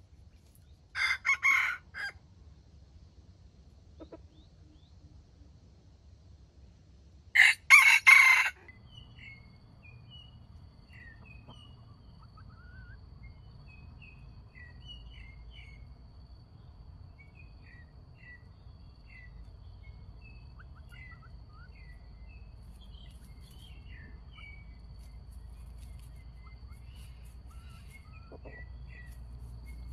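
A junglefowl decoy rooster crowing twice, each crow short, about six seconds apart. Faint chirping of small birds and a steady high insect drone follow.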